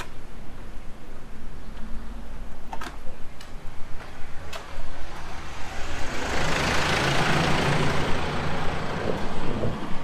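A motor vehicle passing close by on a street, swelling about halfway through and fading near the end, over a low steady engine hum.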